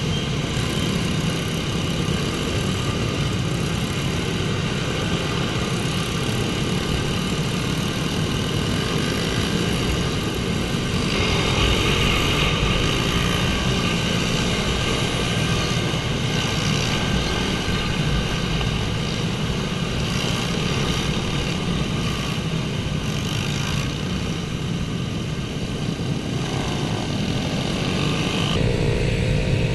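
Small pit bike engines running with a steady buzz, getting brighter about eleven seconds in.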